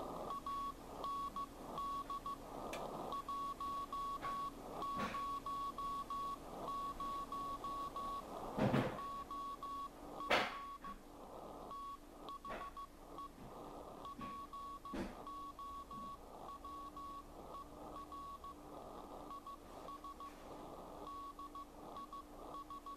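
Morse code (CW) from W1AW's code practice transmission received on a ham radio: a steady high beep keyed on and off in dots and dashes over band noise. A few sharp clicks stand out, the loudest about 9 and 10 seconds in.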